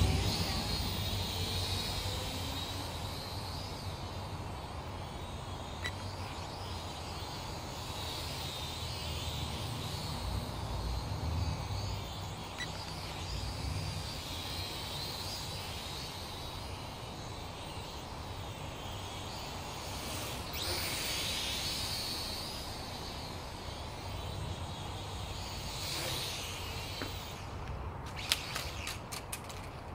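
Syma toy quadcopter's propellers whining, swelling and fading as it flies about, over a low rumble. A few sharp clicks near the end.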